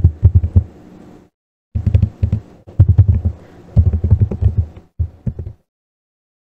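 Computer keyboard typing: rapid runs of dull, thudding keystrokes with short pauses between them, stopping about five and a half seconds in.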